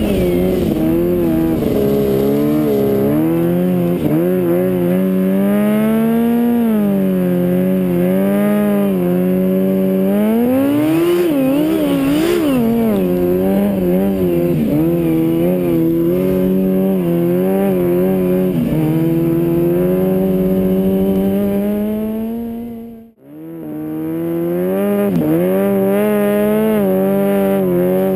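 Snowmobile engine running hard, its pitch rising and falling over and over as the throttle is worked. About three-quarters of the way through the sound drops out suddenly for under a second, then comes back.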